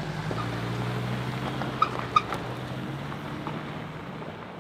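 Four-wheel-drive pickup towing a loaded trailer pulling away on gravel, its engine running steadily and slowly fading as it drives off. A couple of light clinks near the middle.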